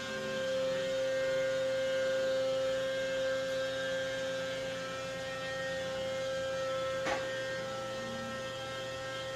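Steady electrical hum made of several fixed tones, the strongest a mid-pitched drone, with one short click about seven seconds in.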